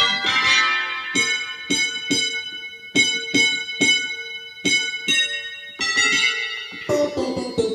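Korg Krome keyboard playing one of its Korg M1 sounds, a bright electric-piano-like patch: a phrase of struck notes and chords, each ringing and fading.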